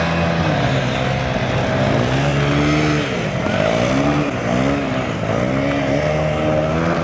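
Honda CRF250L single-cylinder dirt-bike engine under throttle. It holds a steady pitch, then revs down and up several times as the rider works the throttle.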